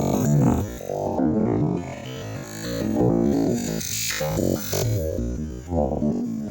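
Background music with a synthesizer keyboard melody.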